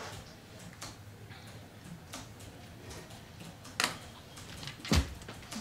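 Quiet room tone in a small room, broken near the end by two sharp knocks about a second apart, the second louder and deeper.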